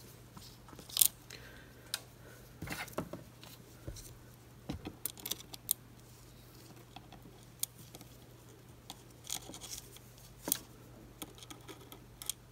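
Scattered light clicks and taps of metal tweezers picking up a small surface-mount chip and setting it onto a circuit board, the loudest about a second in, over a faint steady low hum.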